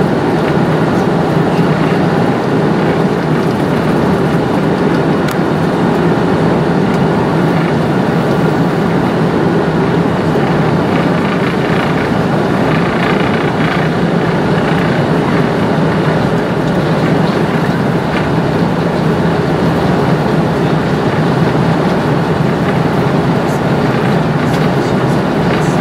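Steady cabin noise of an Airbus A330 taxiing, its Rolls-Royce Trent 700 engines running at low power with the airframe rumbling over the taxiway, heard from inside the cabin.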